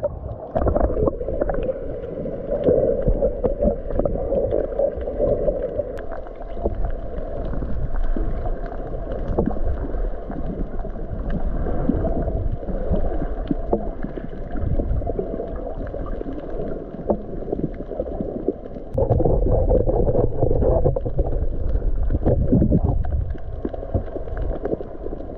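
Sea water sloshing and bubbling around a camera held at and just below the surface while snorkelling, heard dull and muffled as though underwater. It swells louder twice, once near the start and again about three-quarters of the way in.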